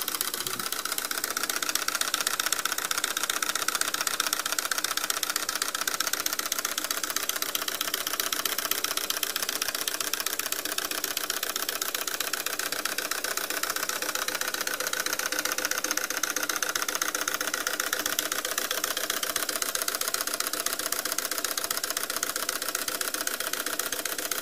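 Homemade single-cylinder piston engine with a cam-operated valve and flywheel, running steadily on vacuum with a rapid, even mechanical clatter; it is pretty quiet. The refrigerator compressor that supplies the vacuum hums alongside it.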